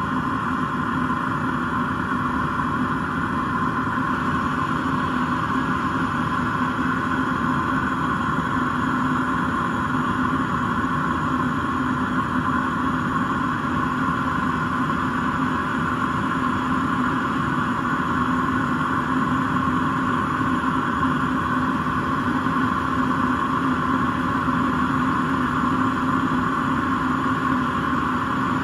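Salvaged Eberspächer D1LC diesel air heater running steadily on a bench test: a constant fan hum with a few held tones over a rushing of air, the sign of the heater working and blowing hot air.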